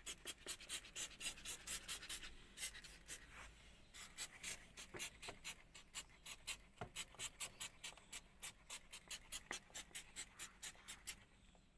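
Hand trigger sprayer squeezed over and over, each pull giving a short hiss of spray, about three to four spritzes a second. It is misting a shampoo-and-water cleaning solution onto a car's door panel, and the spraying stops just before the end.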